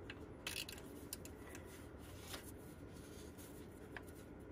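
Scattered light clicks and rubbing from a hand tool and gloved hands working the serpentine belt onto its pulleys, over a faint low hum.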